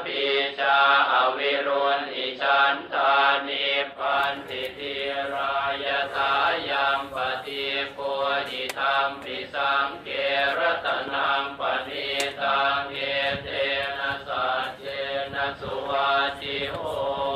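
Buddhist chanting in Pali: a steady recitation of pitched syllables that runs on without a break.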